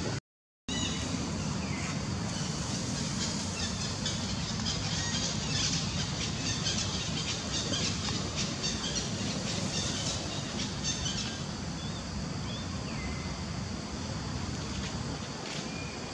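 Young long-tailed macaques squealing in short, high cries while play-fighting, over steady background noise. The sound cuts out for about half a second just after the start.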